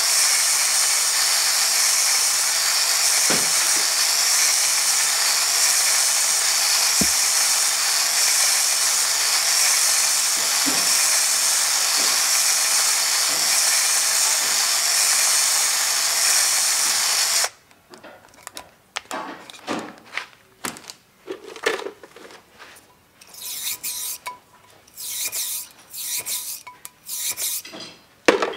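Drill spinning a diamond hone inside a new valve guide of a cast-iron Pontiac 455 cylinder head, running steadily to bring the guide out to its oil clearance. It stops abruptly about two-thirds of the way through, followed by short metallic clinks and rubbing as the tools are handled.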